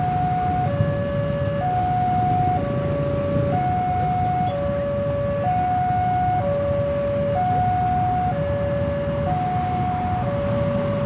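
Railway level-crossing alarm sounding a two-tone electronic warning, alternating high and low notes at about one note a second. A steady low rumble runs beneath it.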